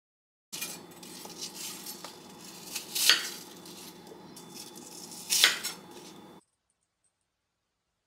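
Steel chef's knife slicing peeled apples on a cutting board, with small clicks of the blade and two louder knocks against the board, about three and five and a half seconds in.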